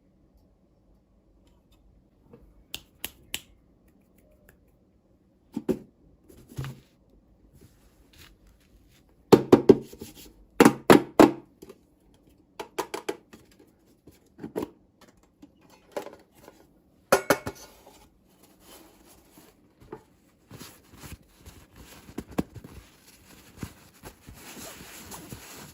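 Hands handling small plastic toy pieces and packaging: scattered taps, clicks and knocks, the loudest in quick clusters about ten seconds in, with rustling near the end.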